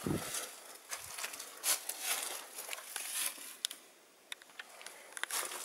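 Scattered rustling and crackling with a few light knocks, and a low thump at the very start: movement and handling noise from someone shifting about on a leaf-strewn rocky floor.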